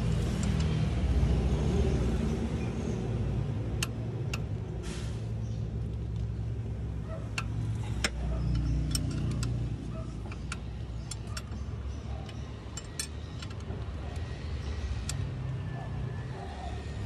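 Car engine running with a steady low hum, with scattered light metallic clicks and clinks over it through the middle of the stretch.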